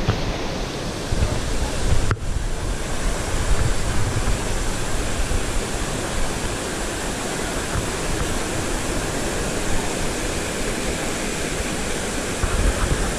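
Steady rushing of flowing water, with a low rumble underneath.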